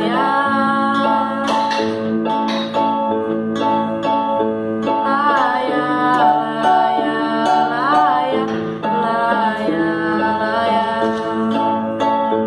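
Electronic keyboard and acoustic guitar playing a song together, with a girl's voice singing held, wavering notes over them.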